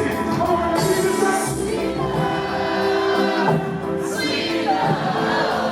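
Live reggae band music with singing.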